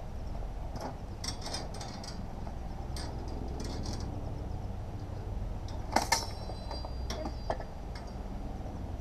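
Sword blades clashing at a distance: a scatter of light clinks through the exchange, the loudest a quick double strike about six seconds in that rings briefly.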